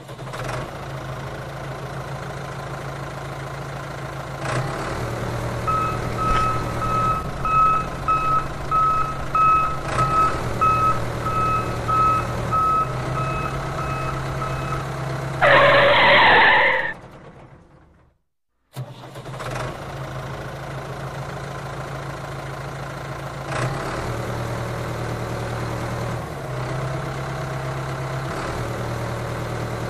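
Tractor engine running steadily, its level stepping up and down every few seconds. A reversing beeper sounds about twice a second for around nine seconds, followed by a loud blast of about a second and a half. The engine sound cuts out briefly, then carries on.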